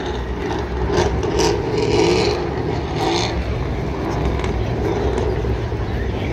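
Car engines running on the race track, their pitch wavering up and down, over a steady low rumble and grandstand crowd noise.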